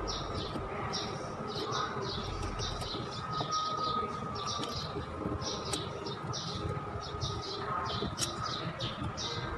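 Small birds chirping rapidly and continuously over a steady low background rumble.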